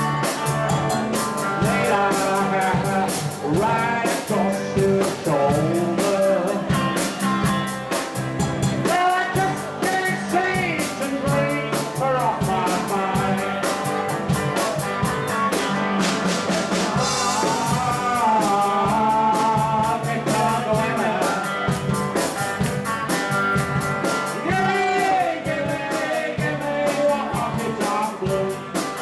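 A rock band playing: a singing voice over guitar and a drum kit keeping a steady beat.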